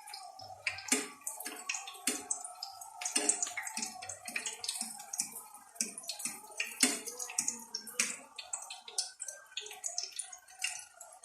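Water splashing and dripping in irregular strokes, as of hands working in a basin of water, over a faint steady tone.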